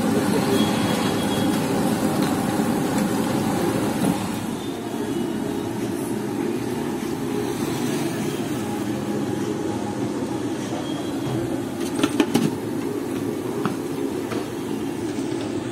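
Steady low rumble of a busy street-food stall, a little louder for the first four seconds, with a few sharp clicks about twelve seconds in.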